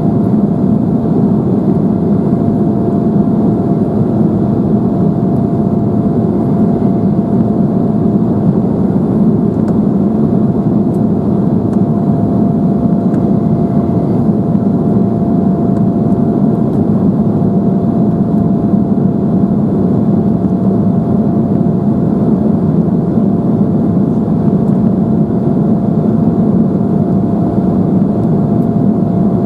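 Steady cabin roar of an Embraer 175 in its climb after take-off: its two GE CF34-8E turbofans and the airflow, heard from a window seat, with a steady whine held throughout.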